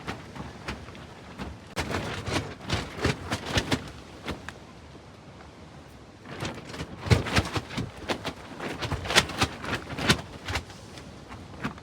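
Rapid clattering knocks and bangs in two bursts of a few seconds each, over a steady hiss.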